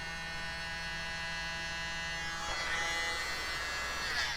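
Small, powerful hair dryer running with a steady motor whine as it blows acrylic paint outward on a canvas; the whine shifts about two and a half seconds in and again near the end.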